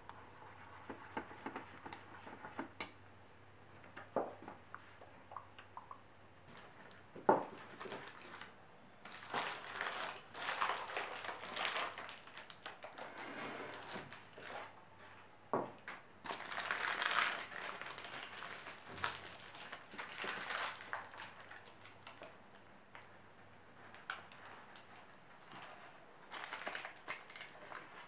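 Baking paper crinkling and rustling in several bursts as it is handled and peeled off a chocolate sponge cake, with a few sharp knocks in between.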